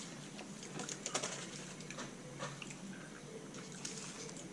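Quiet eating sounds: scattered small clicks and light rustles of someone eating a fast-food burger and fries.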